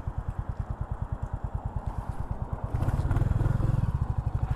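Motorcycle engine ticking over with an even, rapid beat, then getting louder about three seconds in as it is opened up to move off. Heard through a microphone inside the rider's helmet.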